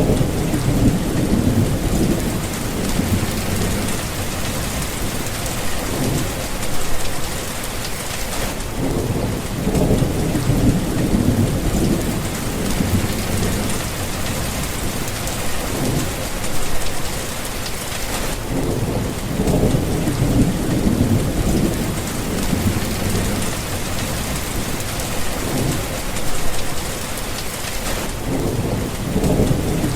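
A thunderstorm: steady rain falling, with rolling thunder rumbling in and fading out several times.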